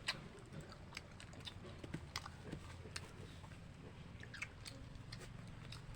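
Someone eating without hands: faint, irregular crunchy bites and chewing, heard as scattered small clicks over a low background hum.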